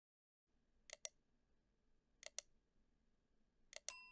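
Subscribe-button animation sound effect: three quick double mouse clicks, evenly spaced, the last followed near the end by a ringing notification chime.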